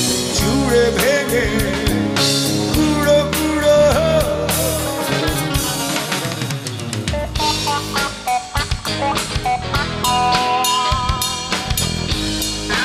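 Rock band instrumental passage: an electric lead guitar plays a melody with bent notes over electric bass and a drum kit keeping a steady beat.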